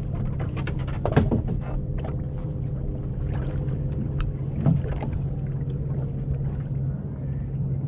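Steady low hum of a boat motor running, with a couple of short knocks about a second in and again near the middle.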